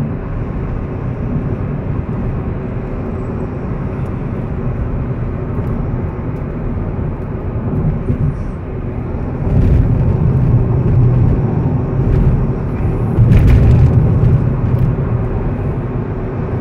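Cabin noise of a car driving on a wet highway: engine and tyre noise running steadily, becoming louder and heavier about two-thirds of the way through.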